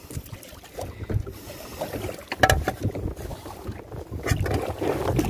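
Uneven wind rumble on the microphone, with a sharp knock about two and a half seconds in and a few lighter knocks.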